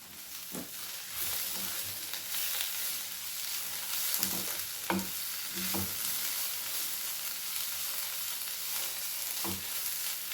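Tomato-based spice masala, with ground chilli, cumin, coriander and turmeric powders just added, sizzling steadily in oil in a kadai on the stove. A spoon knocks and scrapes against the pan a few times while stirring.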